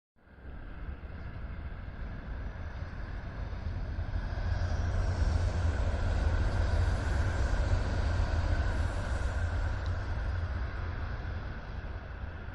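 A train passing a level crossing on the Sanyo Main Line: a rumbling pass-by that builds over the first few seconds, is loudest in the middle and fades toward the end.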